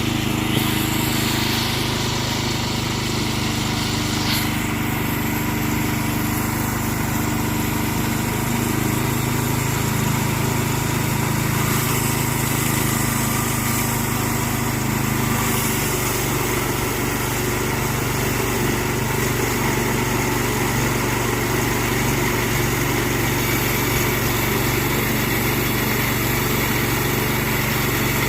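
Frontier portable bandsaw sawmill's small gasoline engine running steadily as the mill saws through a cedar log.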